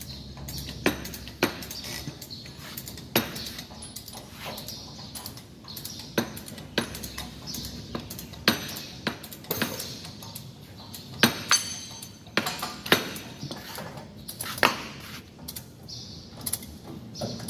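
Irregular sharp metallic clinks and clanks of hand tools and loosened bolts against the steel blade mounting, a few ringing briefly, with about a dozen strong knocks spread through.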